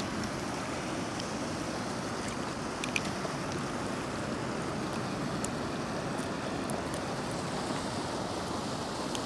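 Steady rush of river current flowing around a wading angler, with a faint click about three seconds in.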